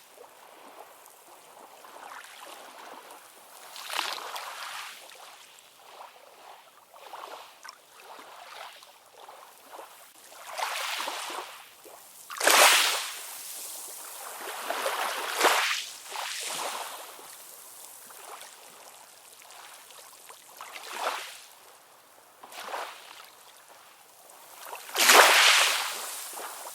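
Sea waves washing in and breaking, an irregular rise and fall of hissing surf with little low rumble. The loudest surges come about halfway through and near the end.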